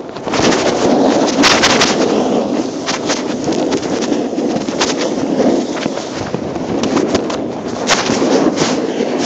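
Rustling, scraping noise on the camera's microphone, broken by many sharp clicks and cracks: handling noise from the camera being carried or covered.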